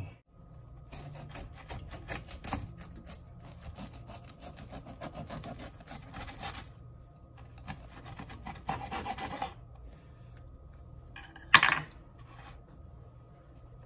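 Kitchen knife sawing back and forth through the crisp fried desiccated-coconut crust of a stuffed milkfish on a wooden cutting board: quick scratchy rasping strokes in two spells, with one brief louder clack near the end.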